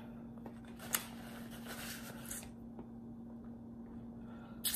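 Quiet closed-mouth chewing of food, with a few soft wet mouth clicks, the strongest near the end, over a steady low hum.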